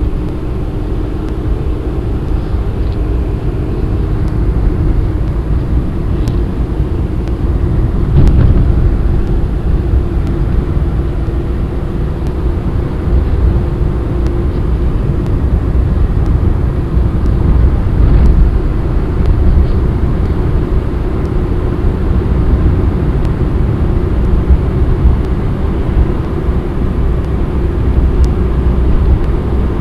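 A car driving, with a steady low rumble of engine and road noise and a faint steady hum.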